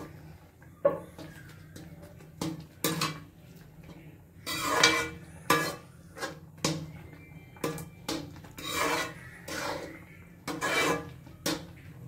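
Steel spatula scraping and knocking against an aluminium kadhai as thick carrot halwa is stirred while its milk cooks down. The strokes come about once a second, and a few are longer scrapes.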